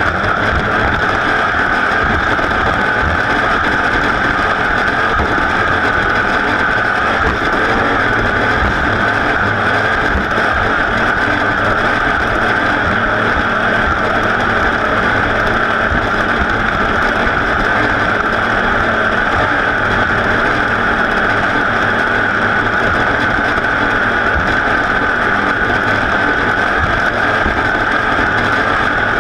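Racing vehicle engine running continuously at a steady pitch, a loud unbroken drone with no revving up or down.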